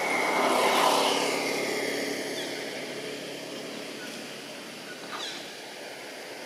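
Engine noise of something passing, swelling to its loudest about a second in and then slowly fading away.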